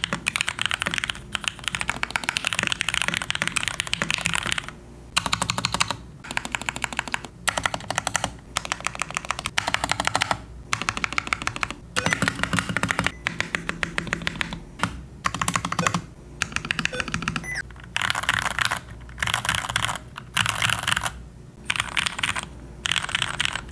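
Fast typing on a Rakk Lam-Ang Pro mechanical keyboard with Gateron Milky Red linear switches. It comes as an unbroken run of key clacks, then as runs of a second or two split by short pauses.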